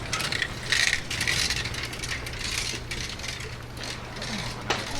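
Bicycle freewheel ratcheting with fast, rattling clicks as the bike coasts past, over a low steady hum.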